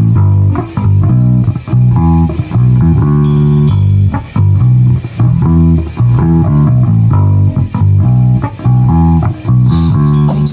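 A band plays the instrumental intro of a song on guitar and bass guitar, a chord pattern repeating in a steady rhythm with short breaks between phrases.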